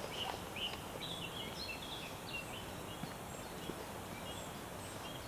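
Small birds chirping and singing in short rapid notes over a steady background hiss, the calls thinning out after about three seconds.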